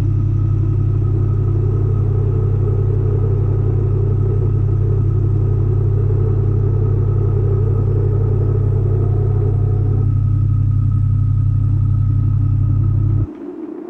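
A loud, steady low-pitched drone with a thin higher tone over it, which cuts off suddenly near the end.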